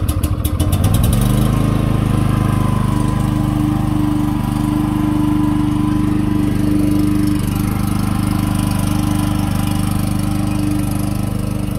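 Champion 4250-watt open frame inverter generator's single-cylinder engine starting by remote: it cranks and catches in the first second, then settles into a steady run.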